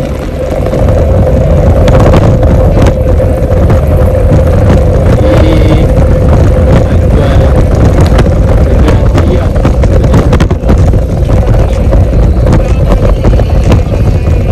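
Steady loud road and wind noise of riding a bicycle, the wind buffeting the microphone, with a steady hum underneath.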